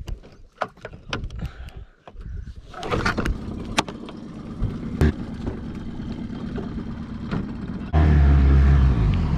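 A few knocks, then a small Mercury outboard motor starts about three seconds in and runs steadily. Near the end it suddenly gets much louder as it is throttled up.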